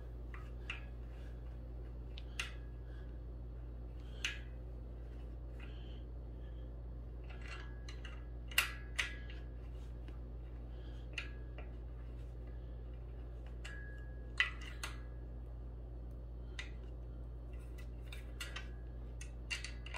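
Allen wrench turning a screw by hand into a desk's steel leg frame: light metallic clicks and scrapes at irregular intervals, a few with a brief ring, as the key is turned and reseated.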